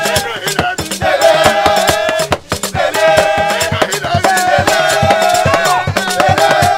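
A group of men singing together over Yoruba talking drums beaten with curved sticks in a steady rhythm, with a short break in the sound about two and a half seconds in.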